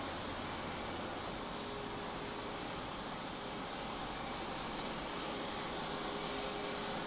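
Boeing 737 jet engines at takeoff power during the takeoff roll: a steady rush of engine noise with a faint held tone, growing slightly louder near the end.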